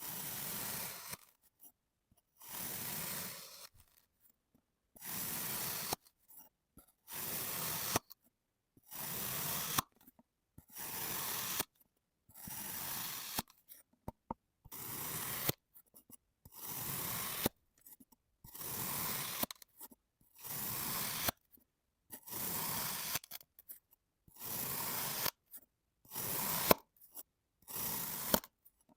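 Kinetic sand being cut again and again with a blade: a soft, gritty crunching drag for about a second on each cut, with short pauses between them, some fifteen cuts in all.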